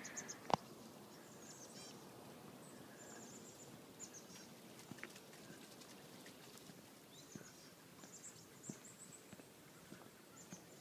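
Faint outdoor garden ambience with small birds chirping and trilling now and then, thin and high-pitched. A sharp click about half a second in, and a few softer clicks later.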